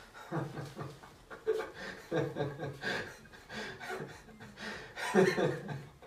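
A person's voice chuckling and laughing in short runs, loudest about five seconds in.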